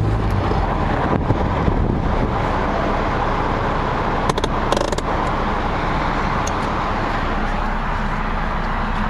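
1976 BMW 2002's four-cylinder engine running steadily with a low, even rumble, through its new muffler. A few short clicks come about four to five seconds in.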